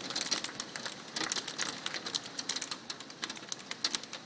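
Hailstones striking a deck: a rapid, irregular clatter of sharp ticks, many each second.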